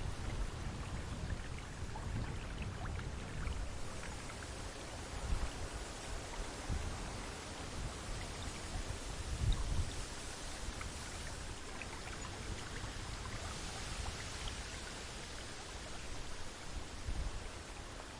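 River water running with a steady rush, while gusts of wind rumble on the microphone, the strongest about five and nine and a half seconds in.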